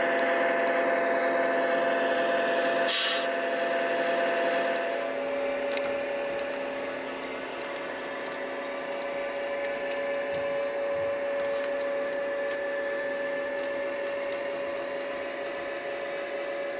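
Electric model diesel switcher locomotive running, its motor and gears giving a steady hum that shifts slightly in pitch about five seconds in, with light clicks as the wheels cross track joints and switches and a short hiss about three seconds in.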